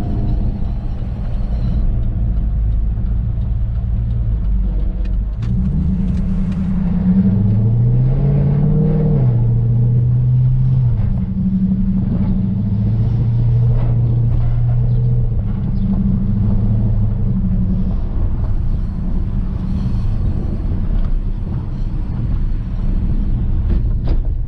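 Infiniti M45's 4.5-litre V8 engine running under way. About six seconds in, the engine note climbs as the car accelerates. Near the nine-second mark the pitch drops at a gear change, and the engine then settles into a steadier note at varying revs.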